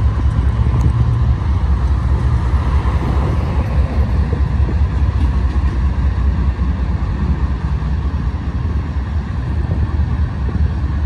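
Freight train moving slowly past, a steady low rumble.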